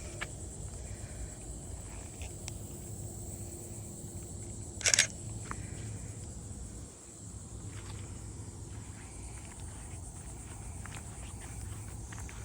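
Outdoor marsh ambience: a steady high-pitched insect drone with faint footsteps, and one short sharp sound about five seconds in.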